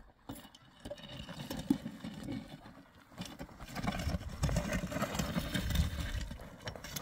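Loaded metal wheelbarrow rattling and knocking as it is pushed down a stony dirt slope, with footsteps crunching on loose gravel. It gets louder about halfway through.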